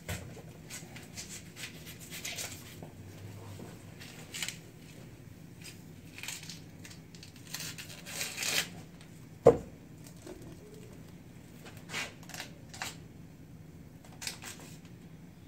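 Dry, papery garlic skin crinkling and tearing as it is peeled by hand, in short scattered bursts. A single sharp knock comes about nine and a half seconds in.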